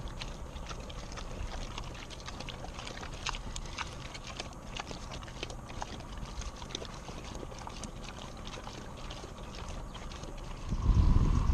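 Many irregular small clicks and knocks over a low rumble; near the end a much louder low rumble sets in.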